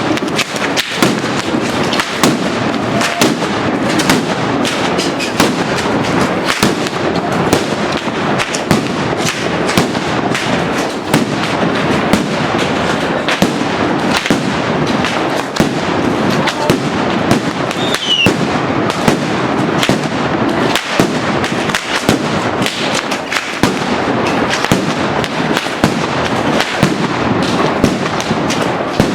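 Batteria napoletana, a long ground chain of firecrackers, going off in a dense, continuous rattle of bangs with no let-up.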